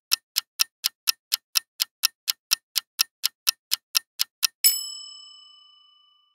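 Countdown timer sound effect: quick clock ticking, about four ticks a second, then a bright bell ding about four and a half seconds in that rings out and fades, marking the end of the countdown.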